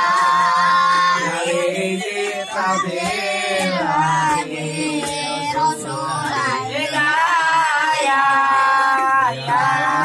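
Boys' voices singing an Arabic sholawat, a devotional song in praise of the Prophet, together a cappella. The melody is drawn out, with long held notes that waver and bend.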